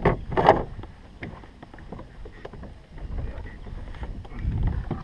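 Wind rumbling on the microphone and water sounds around a fishing kayak, with two short loud noisy bursts right at the start and scattered light clicks of gear being handled.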